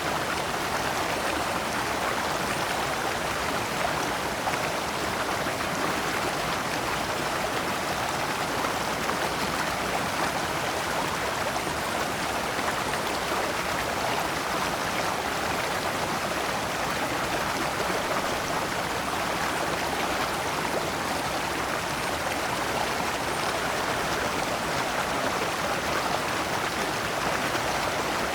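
Shallow stream flowing steadily over rocks in small cascades, an even rushing and splashing of water.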